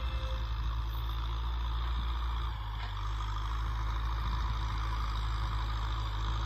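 Kubota M6040 SU tractor's four-cylinder diesel engine running steadily while pulling a plough: a deep, even engine hum with a hiss of mechanical noise above it.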